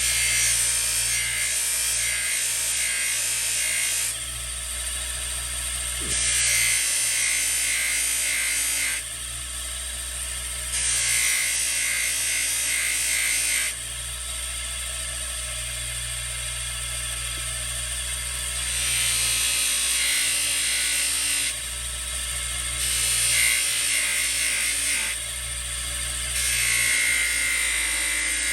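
Electric polishing wheel running with a steady motor hum, while a ratchet is pressed against the buffing wheel in repeated spells of a few seconds, each bringing a loud hiss that stops when the part is lifted off.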